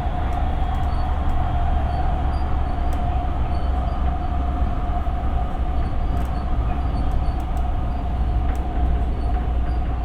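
Siemens P2000 light rail car running at steady speed, heard from inside: a constant low rumble with a steady whine above it and faint scattered ticks.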